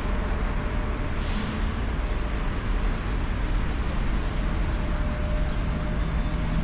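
Motorcycle running with a steady low rumble of engine, road and wind noise. A short hiss comes about a second in, and a low steady engine note comes up near the end.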